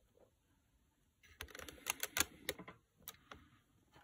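A quick run of light clicks and taps starting about a second in, followed by two single clicks near the end, from hand handling around the circuit board.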